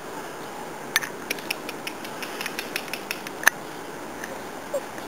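A whippet puppy's paws and claws knocking and scraping on a folding metal sun lounger: a run of sharp, irregular clicks and taps, the loudest a single knock about three and a half seconds in. A short faint squeak follows near the end.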